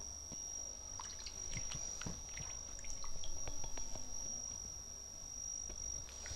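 Papaya slices being rinsed by hand in a steel bowl of water: small splashes, drips and clicks, busiest between about one and three and a half seconds in, over a steady high-pitched tone.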